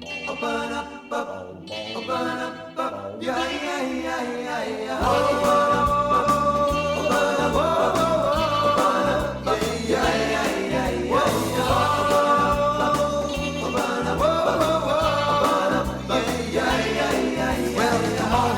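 Rock and roll song intro: a sparse opening, then the full band comes in about five seconds in with bass and a steady beat, under long held wordless vocal harmony notes.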